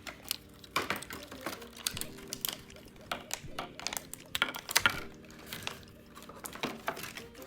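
Irregular small clicks and taps of plastic doll accessories and packaging being handled and set down, several a second and uneven, with a few louder knocks about halfway through.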